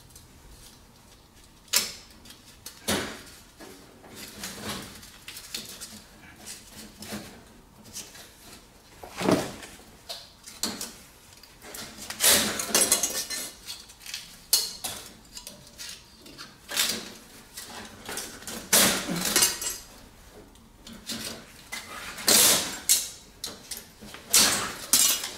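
Copper pipe and metal fittings clinking and scraping as they are handled and worked with a hand tool, with irregular sharp clicks and a few longer scrapes.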